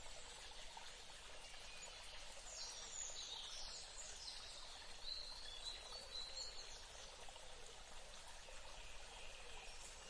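Shallow stream running steadily over rocks in small rapids, with birds calling from about two and a half to seven seconds in.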